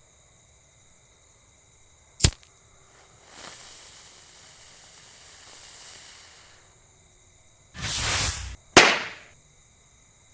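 Kwitis (Filipino bottle rockets) going off: a sharp bang about two seconds in, an even hiss lasting about three seconds, then a loud rush near the end followed at once by a second sharp bang. Crickets chirp steadily underneath.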